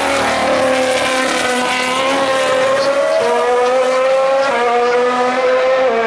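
Formula 1 car's turbocharged V6 engine at high revs, pulling away with its pitch climbing and dropping back at quick upshifts about halfway through, again a little later and near the end. A hiss of tyres on the wet track runs underneath.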